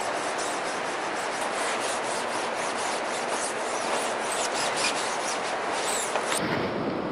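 Dye paste being rubbed and scraped by hand across the mesh of a carpet screen-printing screen: a dense, repeated scraping of short strokes. About six seconds in it gives way to a lower rumbling noise.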